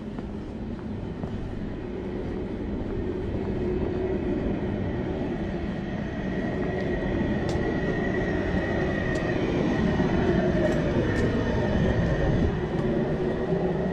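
A van driving past on a wet road, getting gradually louder. Its strange noise is a high steady whine over the tyre noise, then a lower tone that falls in pitch as it passes.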